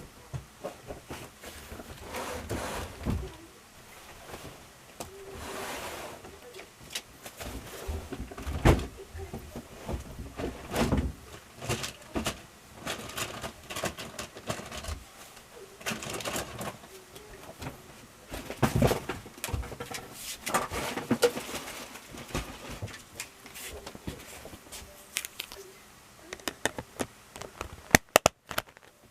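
Hands handling a Plarail plastic toy level crossing: irregular light plastic clicks, knocks and rustles, with a quick run of sharp clicks near the end.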